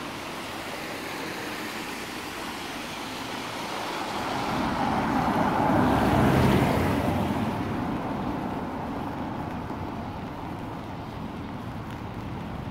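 Steady hiss of rain and traffic on a wet road. A car passes close by, its tyres swishing on the wet tarmac: the sound builds, is loudest around the middle, then fades away.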